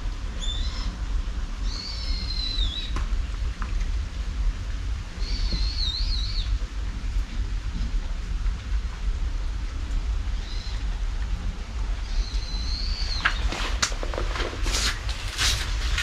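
Steady rain with a deep rumble, and a bird calling over it: short high-pitched calls that dip in pitch, repeated every few seconds. A quick run of sharp clicks and rustles comes near the end.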